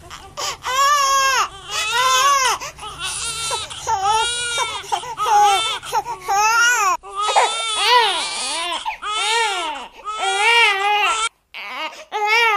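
Infant crying: repeated wailing cries that rise and fall in pitch, with short breaks between them, and a brief cut-out near the end before the crying starts again.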